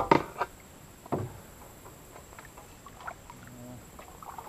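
Kayak paddles dipping and pulling through calm water: a couple of sharp splashes in the first second and a half, then quieter drips and small water sounds.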